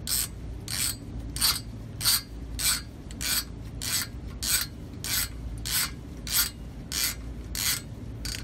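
Ratchet wrench with a stud-installer socket driving a new exhaust manifold stud into the engine block. It makes a short rasping ratchet whir on each back-and-forth stroke, about three every two seconds, in a steady rhythm.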